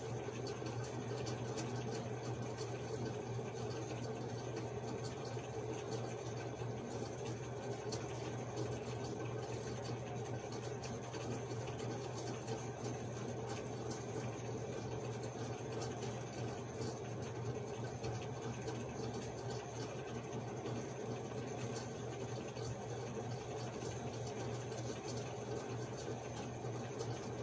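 A steady low hum with room noise, unchanging throughout.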